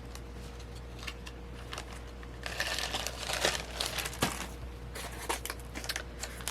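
Packaging crinkling as it is handled and opened, loudest for about a second and a half near the middle, followed by a few small clicks and rustles.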